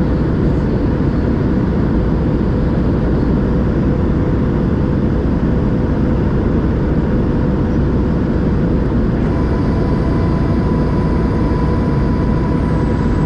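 Cabin noise inside a Boeing 737-700 on approach: a steady rush of airflow and CFM56 engine noise with a steady hum. About nine seconds in, a higher whine joins, its top tone dropping slightly in pitch near the end.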